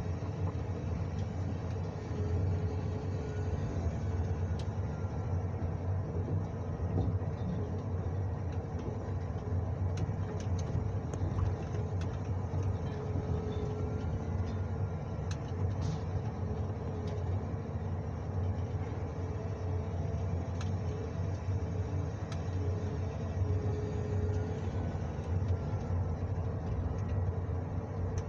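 John Deere 1910G forwarder's diesel engine running steadily, heard from inside the cab while the hydraulic crane works. A faint whine rises and falls three times, about ten seconds apart, with a few light clicks midway.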